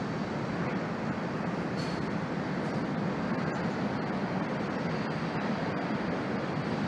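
Freight cars of a long train rolling steadily over an elevated steel girder bridge: a continuous rumble of wheels on rail with a faint steady high tone above it.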